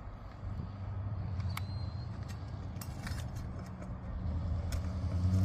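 Steady low engine-like hum, with scattered sharp clicks and a brief high squeak about one and a half seconds in, from hand tools prying asphalt roof shingles and pulling their nails.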